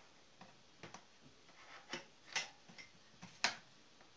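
A scattered series of sharp plastic clicks and knocks as cable plugs are pushed into the socket block of a Singer household sewing machine, the sharpest about two and a half and three and a half seconds in.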